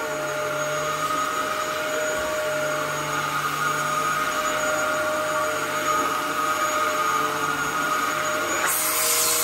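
Dyson DC07 upright vacuum cleaner running on carpet with a steady motor whine, working properly with full suction. Near the end a sudden rush of airy hiss joins in.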